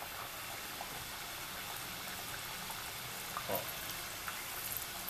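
A pastel de angu (cornmeal-dough pastry) deep-frying in very hot soybean oil, giving a steady bubbling sizzle.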